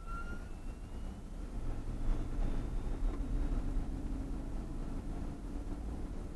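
Steady road and engine noise of a car cruising on a highway, heard from inside the car: a low rumble with a faint drone. A single rising tone fades out about half a second in.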